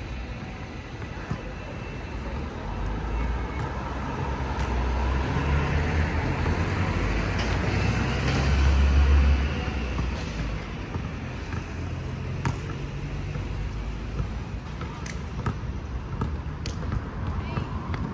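Outdoor street ambience: road traffic swelling to its loudest about halfway through, as a vehicle passes, then easing off. Wind rumbles on the microphone throughout.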